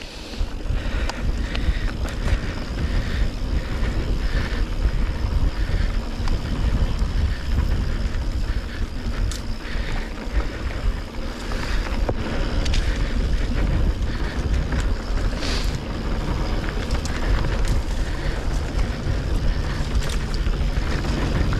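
Mountain bike riding down a dirt trail: a steady rush of wind on the microphone and tyres on dirt, with frequent short clicks and rattles from the bike over bumps, and a low steady hum coming in near the end.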